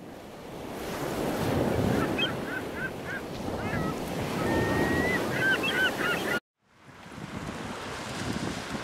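Ocean surf washing on a sandy beach with wind on the microphone. Birds call in quick runs of short chirps about two seconds in and again around five seconds. The sound cuts out for a moment just after six seconds, and the surf and wind come back.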